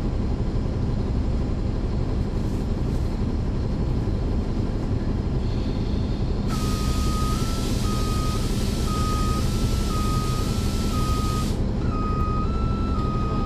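Caterpillar C13 ACERT inline-six diesel engine of a 2009 NABI 40-SFW transit bus running, heard from the rear of the bus. About halfway through, a loud hiss of air lasts about five seconds, and an alternating two-tone beeping starts with it and goes on to the end.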